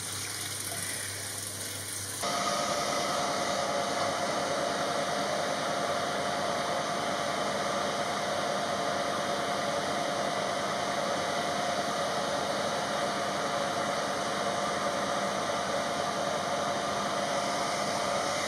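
Tap water running into a sink for about two seconds, then a sudden change to a hair dryer blowing steadily, its motor giving a constant whine, as a wet kitten is dried in a towel.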